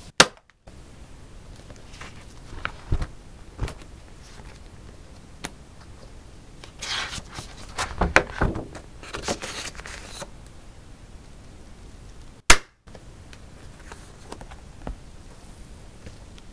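Heavy pages of a ring-binder journal being handled and turned: paper and card rustling, with a few soft taps. Two sharp, loud clicks stand out, one right at the start and one about twelve seconds in.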